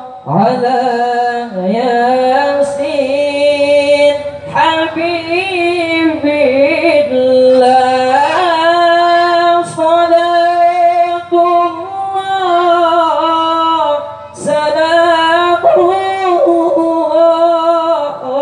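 A young man's solo voice chanting a long, ornamented Arabic devotional melody into a microphone, unaccompanied, in the melismatic qari style: held notes that waver and glide, broken by short breaths about every five seconds.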